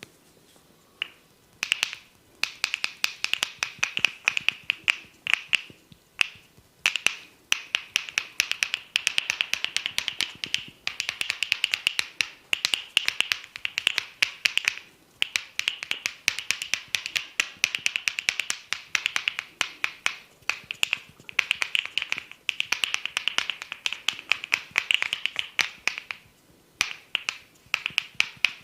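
Fingers scratching and rubbing through hair on the scalp close to the microphone: dense, rapid crackling in runs of a few seconds, broken by short pauses.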